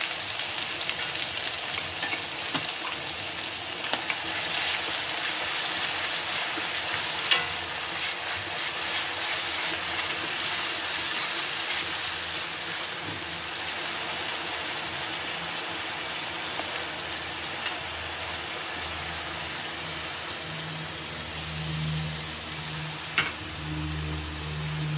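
Food sizzling in hot oil in a kadhai as it is stirred, with an occasional sharp clink of the spoon against the pan.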